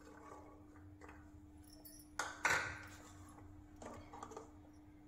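Kitchen containers and utensils being handled: two sharp knocks a fraction of a second apart about two seconds in, the second ringing briefly, then a few lighter clicks.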